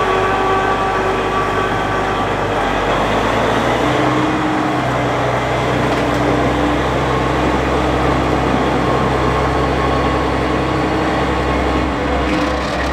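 Tractor engine running steadily under light load, with a steady low hum and a few held tones above it.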